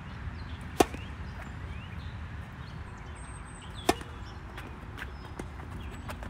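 Tennis racket striking the ball twice, two loud, sharp hits: a slice serve about a second in, then a flat forehand about four seconds in.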